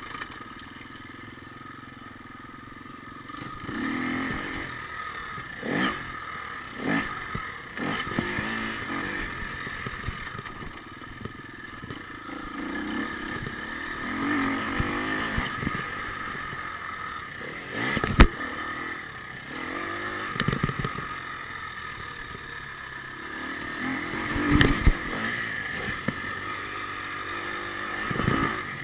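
Husqvarna FE250's single-cylinder four-stroke engine being ridden hard on a dirt track, the revs rising and falling with the throttle every few seconds. Scattered knocks and rattles come through the bike, with two sharp loud knocks in the second half.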